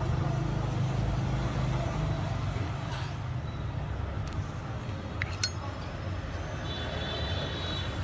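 A steady low hum in the background, with a few short metallic clicks from a Zippo lighter being handled, a pair of them about five seconds in and another as the hinged lid is flipped open near the end.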